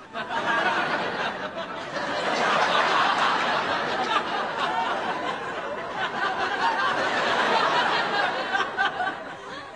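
A crowd of people laughing together, starting suddenly, swelling after a couple of seconds and easing off near the end.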